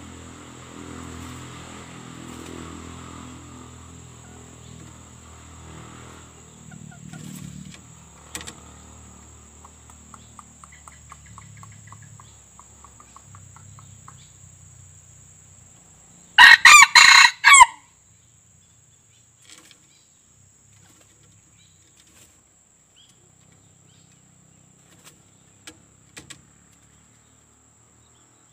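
A white-eared red junglefowl rooster crows once, a short crow of just over a second, about sixteen seconds in, over faint background noise and scattered faint clicks.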